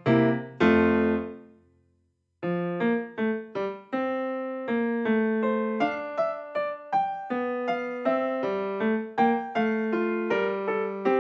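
Background piano music with a light melody of struck notes. It dies away about two seconds in, and after a brief silence a new piano tune begins.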